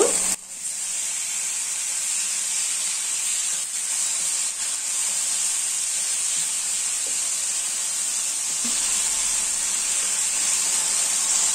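Chopped chicken breast frying in oil in an electric nonstick pan: a steady sizzle.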